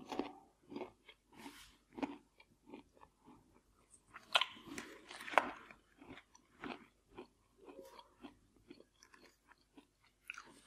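Mouth-close crunching and chewing of crispy baked banana chips coated in milk powder: a run of short, sharp crunches at uneven spacing, roughly two a second, loudest in a cluster about four to five seconds in.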